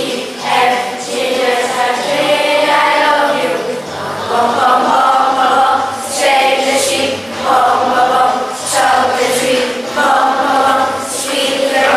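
A group of children singing together in chorus over backing music.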